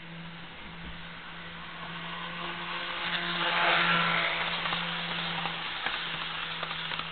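HO-scale Jouef Amtrak RTG Turboliner model, running on a rebuilt Kato F-3 drive, passing close by at speed on sectional track. Its motor and wheel noise swells as it approaches, is loudest about four seconds in, then fades, over a steady low hum, with a few light clicks near the end.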